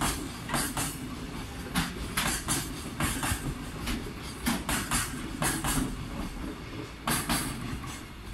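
Freight train's container flat wagons rolling past at speed. The wheels clack in quick pairs over the rail joints as each wagon's wheel sets go by, over a steady rumble of wheels on rail.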